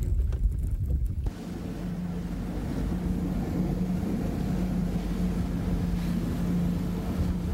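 Wind rumbling on the microphone for about a second, then a bass boat running across choppy water: a steady outboard engine drone under wind and water rush.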